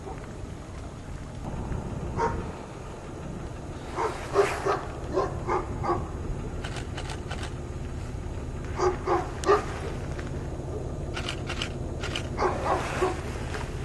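A dog barking, several short barks in a row, in three bouts a few seconds apart, over steady low background noise.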